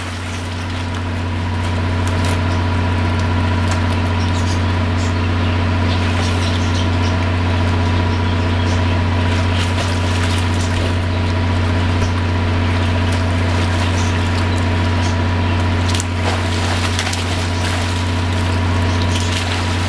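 Water splashing in a small inflatable pool as a child thrashes about, over a loud steady low mechanical hum.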